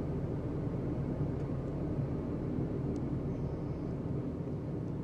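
Steady low rumble of road and engine noise heard inside the cabin of a moving Toyota car.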